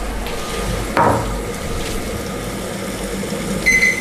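Tomatoes cooking in oil in a covered glass pot on high heat, a steady sizzle and bubble of their juice. There is a light knock about a second in and a short high beep near the end.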